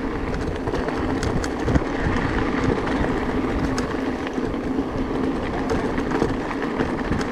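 Electric mountain bike rolling over a gravel track: continuous tyre rumble and crunch with a steady low hum, peppered with small ticks and rattles from stones and the bike.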